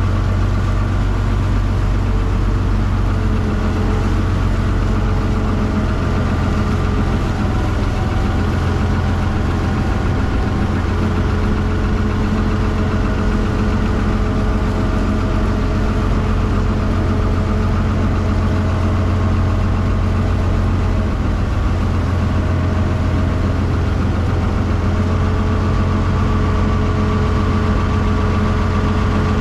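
Engine of a wooden canal boat running steadily under way, a constant low drone that holds one speed throughout.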